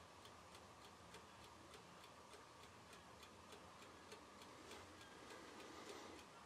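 Faint, steady ticking of a mechanical timer that is still running, about three ticks a second.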